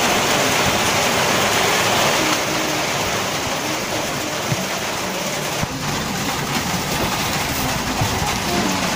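A steady, even rushing noise, like rain or running water, with no clear pitch or rhythm.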